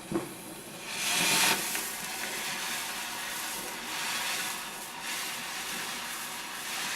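Steady hissing noise that swells into a louder hiss about a second in, then settles back.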